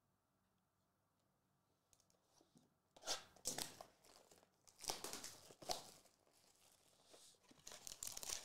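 Trading card packaging wrapper being torn open and crinkled in several short, sharp rustles, starting about three seconds in after near silence.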